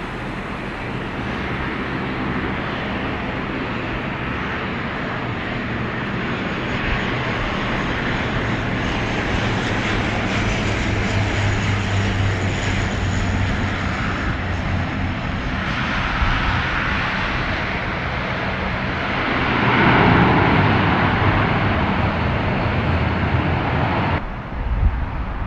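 Passenger aircraft engines running as a plane passes close by, with a faint high whine over a steady rush. The sound builds to its loudest about 20 seconds in, then cuts off abruptly a few seconds before the end.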